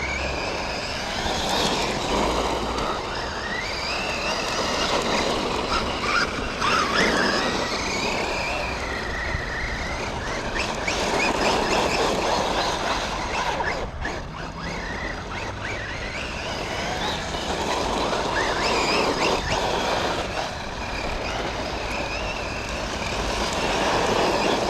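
Losi Lasernut U4 1/10 4WD RC rock racer driving, its brushless motor whining up and down in pitch with the throttle over a steady rushing noise.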